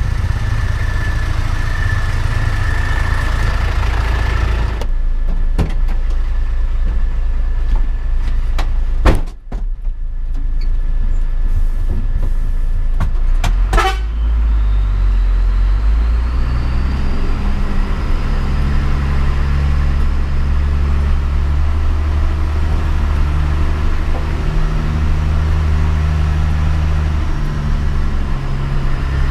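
Hino 500 truck's diesel engine running, with changes in engine speed from about halfway on. A steady high tone sounds over it for the first few seconds, and there are a few sharp knocks in the middle, one loud hit followed by a brief drop in sound.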